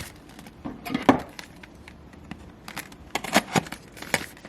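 Handling of a mousepad's cardboard box and packaging: scattered knocks, taps and rustles, loudest about a second in and in a cluster around three to four seconds.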